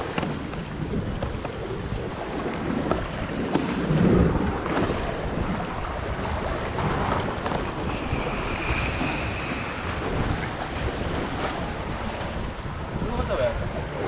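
Sea waves surging and washing through channels between coastal rocks, with wind buffeting the microphone.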